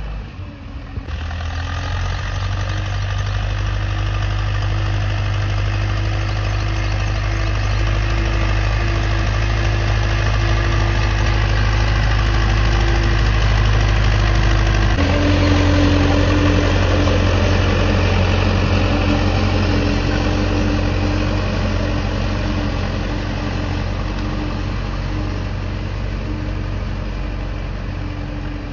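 HMT 5911 tractor's diesel engine running steadily while working a harrow. Its note shifts to a slightly different pitch about halfway through.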